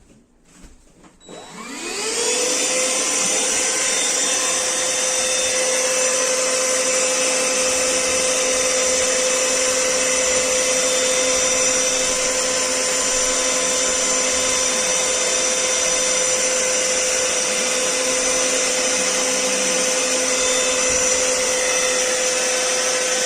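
Black+Decker Powerseries Extreme cordless stick vacuum switched on, its motor spinning up with a rising whine about a second in, then running steadily with a high-pitched whine.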